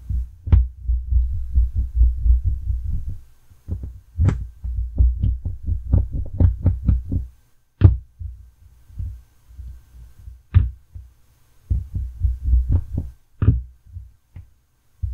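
Hand-work noise from a small screwdriver backing out the tiny screws on a soldering iron's cable connector: low thumps and rubbing against the bench, with many small metallic clicks and ticks. One sharper clack about eight seconds in, as the screwdriver is set down.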